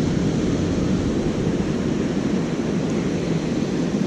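Steady rushing roar of water pouring over the dam on the Grand River, an even noise that does not change.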